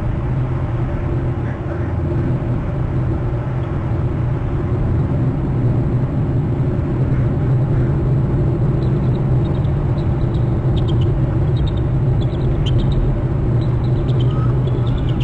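Bald eagles screeching in short, high notes from about nine seconds in, over a steady low rumble.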